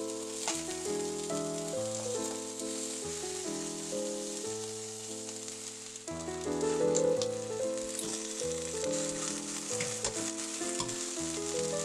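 Zucchini slices frying in olive oil in a pan: a steady sizzle with a few sharp ticks. Background music with melodic notes plays over it.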